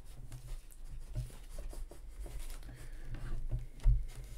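Statue parts being handled and pressed together: small clicks and scrapes, with a single sharp knock about four seconds in as the upper body is pushed down onto its peg. A steady low hum runs underneath.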